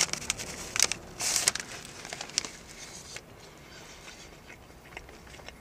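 Someone biting into a bakery pie held in a paper bag, with flaky pastry crunching and the paper crinkling for the first second and a half, then quiet chewing with small clicks.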